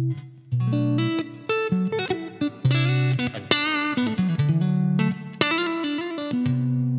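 Stratocaster-style electric guitar playing a neo-soul lead line: runs of single notes, with a held note shaken with vibrato a little past halfway and a downward slide right after it.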